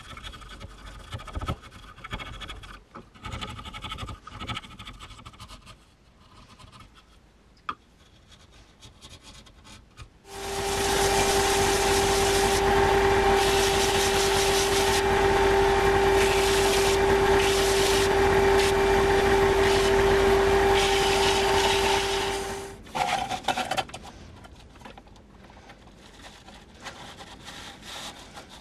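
A chisel scrapes and pares wood in uneven strokes. About ten seconds in, a bench combination belt-and-disc sander starts. It runs with a steady whine for about twelve seconds while a wooden block is sanded on the belt, then shuts off and winds down. Quieter handling sounds follow at the sanding disc.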